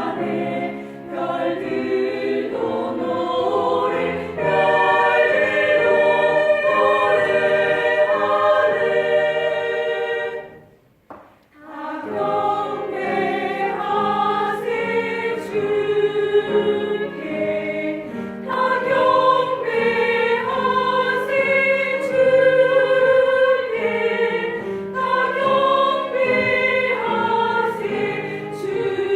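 Small mixed vocal ensemble singing a Christmas song in harmony, with held notes shifting from chord to chord. The singing breaks off briefly about eleven seconds in between phrases, then resumes.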